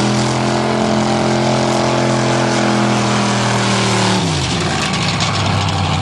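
Car engine held at a steady high rev while being run to destruction, then about four seconds in its pitch drops quickly to a low, steady note.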